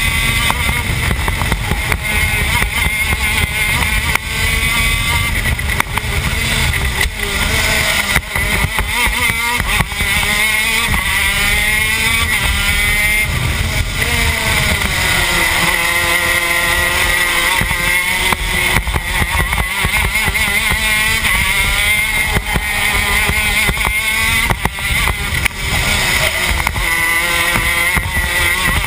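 TM K9c 125cc two-stroke shifter kart engine at full racing pace, its pitch repeatedly climbing and falling as the kart accelerates and slows through the corners, heard from onboard with heavy wind buffeting on the microphone.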